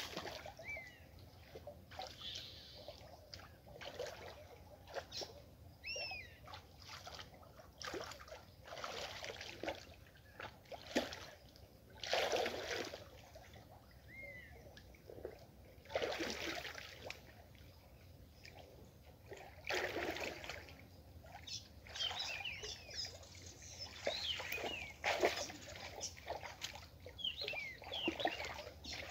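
Muddy water splashing and sloshing in irregular bursts as a person wades and gropes with both hands through a shallow pond bottom. Birds chirp now and then.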